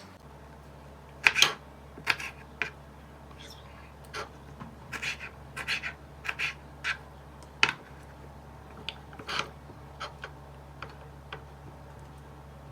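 Irregular short clicks and scrapes of kitchen utensils being handled during food preparation, over a steady low hum.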